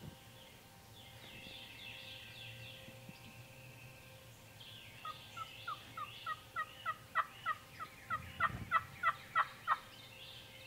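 Wild turkey calling: a long run of about sixteen short, evenly spaced notes, about three a second, growing steadily louder over some four seconds. Fainter songbird chirps come before it.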